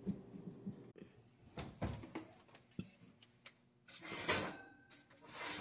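Oven door and wire oven rack being handled: scattered clicks and knocks, then a longer metallic scrape and rattle about four seconds in as the rack slides out with a foil-lined baking tray on it.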